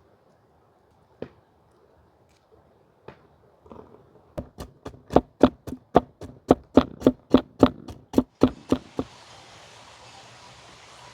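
A knife chopping on a cutting board: a few scattered knocks, then a quick run of about twenty even strokes, about four a second, stopping about nine seconds in. A steady hiss starts as the chopping ends.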